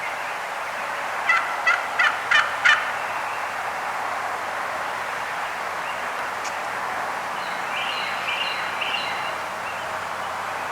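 Turkey yelping: a run of five evenly spaced yelps, about three a second, then a few fainter, higher calls near the end, over a steady background hiss.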